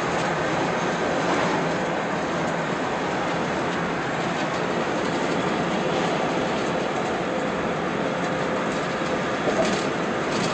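Steady road and wind noise inside a car cruising at highway speed, with a couple of brief taps near the end.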